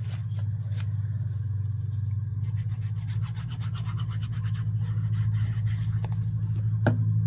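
Paper crafting sounds: light paper handling, then the tip of a liquid-glue squeeze bottle rubbed across the back of a small paper envelope in a quick scratchy rhythm, with a sharp tap near the end. A steady low hum runs underneath.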